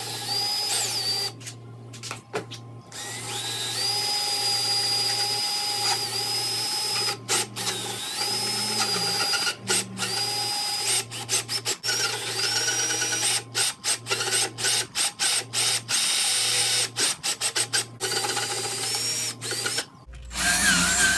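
Ryobi cordless drill with a spade bit boring slowly through the plastic wall of an ice chest. It runs in starts and stops, and its motor whines up to speed with each trigger pull: a few long runs at first, then a rapid string of short bursts in the second half.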